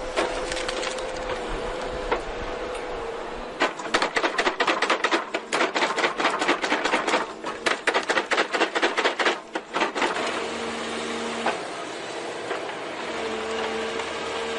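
Wood-processing machine running with a steady whine, broken from about three and a half seconds to ten seconds in by a rapid clatter of sharp cracks, several a second, as wood is chewed up.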